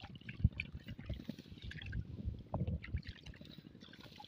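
Shallow river water splashing and trickling softly as a gill net and its rope are pulled by hand, with a few light knocks from handling.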